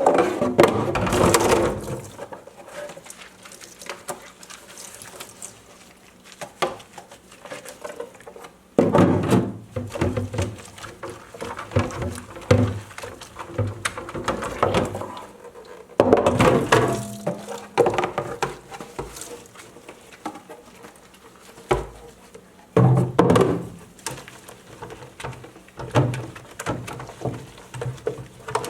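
A removable fridge part being scrubbed with a dishcloth and handled in a kitchen sink: irregular rubbing, knocks and clatter, louder in a few bouts.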